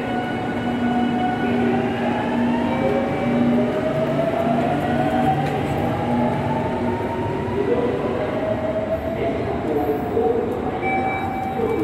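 Electric train's motors whining, several tones gliding upward in pitch for a few seconds as it gathers speed, over a steady low hum that fades out about halfway through.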